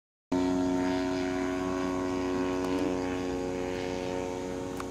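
Radio-controlled model airplane in flight, its engine and propeller running at a steady pitch. The sound cuts in suddenly about a third of a second in and slowly grows a little quieter.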